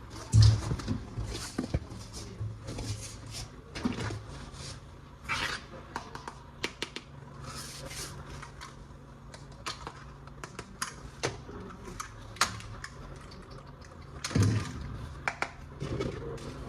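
Plastic toy gun parts and their packaging being handled: irregular light clicks, clacks and short rustles, with a faint steady low hum underneath.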